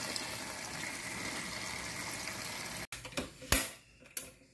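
Tap water running into a steel bowl of cassava leaves as hands swish and rub them clean. The water stops abruptly about three seconds in, and a few sharp knocks follow.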